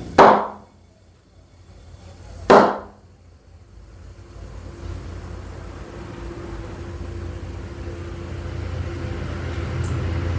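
Two loud, sharp bangs about two and a half seconds apart, each dying away quickly, typical of a tyre's beads snapping onto the rim seats during inflation. Then a low steady hum slowly grows louder.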